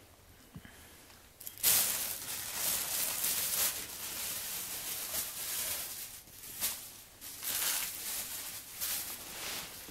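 A long-haired dachshund sniffing and nosing into a potted primula polyanthus. Uneven bursts of sniffing and rustling of leaves and petals start about two seconds in and come and go.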